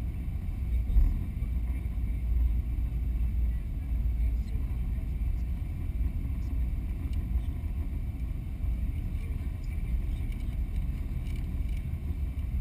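Steady low rumble inside the cabin of a Boeing 777-200 rolling along the runway just after touchdown, with the spoilers up, with a brief louder bump about a second in.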